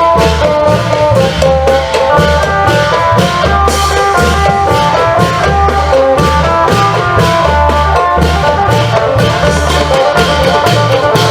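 Isan klong yao long-drum band playing: a phin (Isan lute) picks a fast, busy melody over a repeating deep drum beat, with sharp cymbal strokes throughout.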